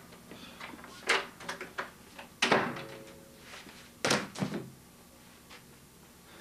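A series of knocks and thuds. Sharp ones come about a second in, two and a half seconds in and four seconds in, with smaller clicks between them. The middle knock is the loudest and rings briefly after it.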